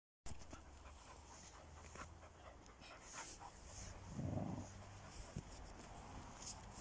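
Dog panting faintly amid light rustling and small clicks, with a short, louder low sound about four seconds in.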